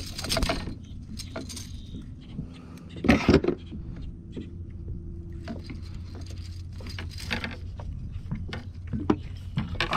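Scattered clicks, rattles and knocks of a landing net and fishing lure being handled against a kayak while a bass is unhooked, with two louder bursts of clattering, one at the start and one about three seconds in.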